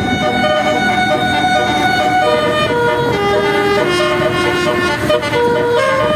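Basuri 'telolet' multi-tone bus horn playing a tune of held notes, stepping down in pitch through the middle and back up near the end, over a low rumble.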